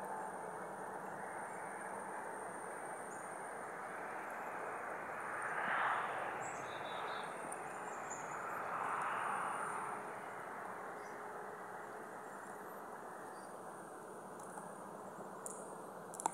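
Outdoor evening ambience: insects trilling steadily at a high pitch over a low rush of background noise that swells twice, around six and nine seconds in, then eases off. A brief sharp click near the end.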